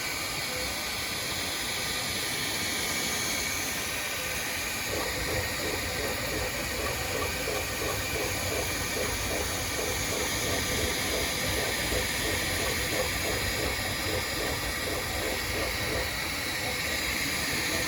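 Bambu Lab P1P 3D printer running a print: a steady whoosh from its cooling fans, with faint whining tones from the stepper motors moving the print head.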